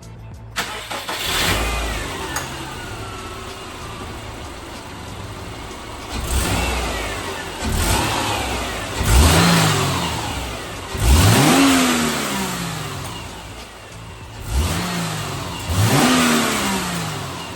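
A 2008 Subaru Legacy 2.5's flat-four boxer engine, still on its stock intake, starts about half a second in and settles. It is then revved in about six short blips, each rising and falling back toward idle.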